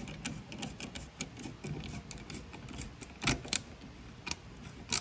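An 8 mm ratcheting socket driver clicking in quick, irregular runs as it tightens the screw of a stainless steel worm-gear hose clamp around PVC pipe and rebar, with a louder knock about three seconds in.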